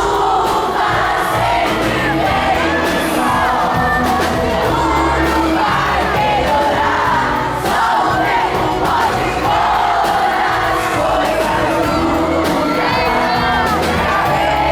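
Live pop band playing loudly through a PA with a large crowd of fans singing along and now and then screaming and cheering.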